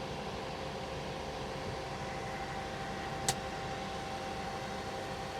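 Cab air-conditioning blower of a John Deere 4052R tractor running steadily: a steady rush of air with a faint hum, the system now blowing cold after a refrigerant recharge. A single sharp click comes about three seconds in.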